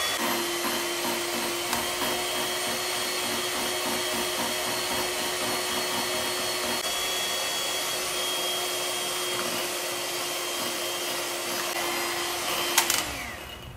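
Electric hand mixer running steadily, its beater whipping instant coffee, sugar and hot water in a glass mug into foam. Near the end it is switched off with a click and its motor winds down.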